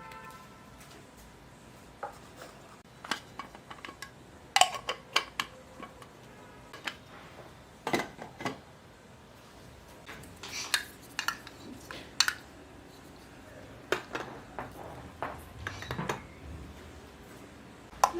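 Small plastic toy kitchen pieces from a miniature kitchen play set being handled, clicking and tapping against each other in irregular bursts of sharp clicks.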